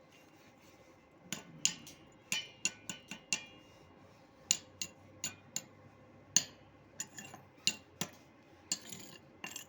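Irregular sharp metallic taps and clinks, metal striking metal a dozen or more times, with a brief ring after some of the strikes.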